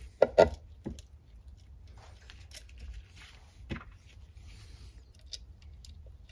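Small clicks and knocks of an alternator's rear cover, screws and washers being handled and fitted by hand. Two sharp clicks about half a second in are the loudest, with another near four seconds and lighter taps between.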